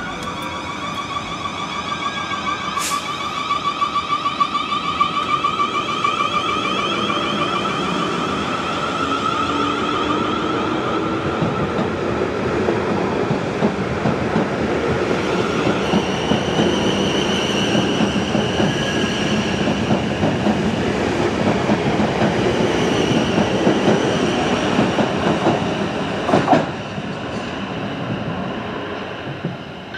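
South Western Railway Class 450 Desiro electric multiple unit running past, its traction motors giving a wavering electric whine over the rumble and clatter of wheels on rail. A higher whine joins about halfway through, and the sound fades in the last few seconds as the train draws away.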